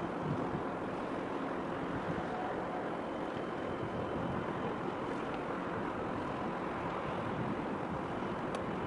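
Steady wash of wind and small waves on open harbour water, with wind rumbling on the microphone. A single faint high tick sounds near the end.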